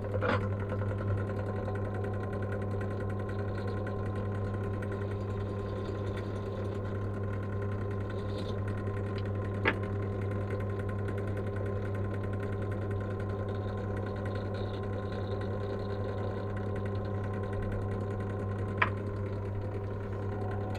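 Pillar drill's electric motor running steadily, spinning a cotton buffing mop as small metal parts are polished against it, with two sharp knocks, one about ten seconds in and one near the end. The drill cuts off at the very end.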